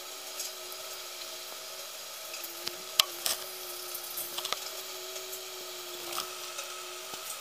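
A steady low hum with a few sharp clicks and light knocks, the sharpest click about three seconds in.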